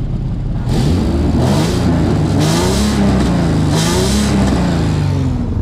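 Nissan 350Z's 3.5-litre VQ35HR V6 revved twice from under the car, the revs climbing slowly and falling back, with a hiss at the higher revs. The owner takes the hiss for exhaust gaskets blowing out, and blames the slow rise in revs on a muffler clogged by a mouse nest.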